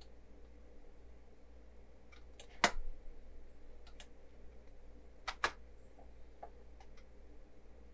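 Computer mouse clicks: a sharp one about two and a half seconds in and a quick double click about five and a half seconds in, with fainter ticks between them, over a low steady hum.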